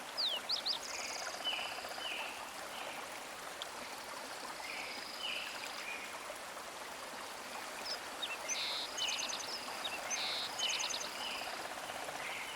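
Designed forest ambience: a stream flowing steadily, layered with wildlife calls, repeated short chirps and bursts of quick trills, from the Krotos Studio forest preset.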